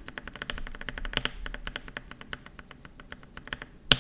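A lubed Gateron Clear linear keyboard switch pressed rapidly over and over, giving a quick run of light clacks, with one sharper clack near the end.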